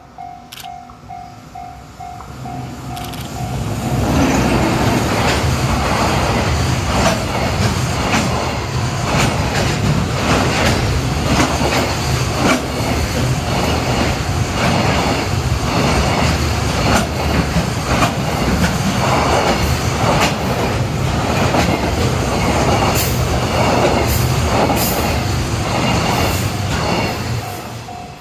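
Level-crossing warning bell ringing in rapid pulses, then from about four seconds in a freight train hauled by a JR Freight EF210 electric locomotive passes close by: a long, loud run of wheel clatter over the rail joints that drowns the bell, which is heard again as the train clears near the end.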